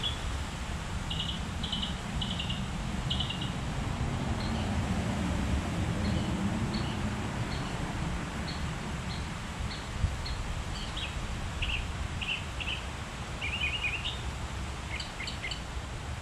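Gusty wind rumbling on the microphone ahead of a thunderstorm, with a bird chirping over and over in short, high phrases. A single sharp click about ten seconds in.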